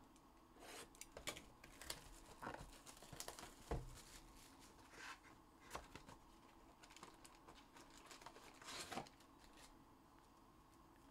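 Faint crinkling and tearing of plastic wrapping as a trading-card hobby box and its packs are opened, with scattered light clicks and a longer crinkle about eight seconds in.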